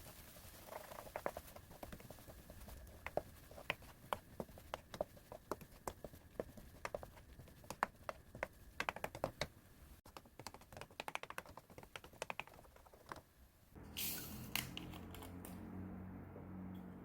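Close-miked eating sounds: quick, irregular clicks and crunches of chewing green onion kimchi and egg fried rice. About 14 s in they give way to a steady low hum with a few louder knocks.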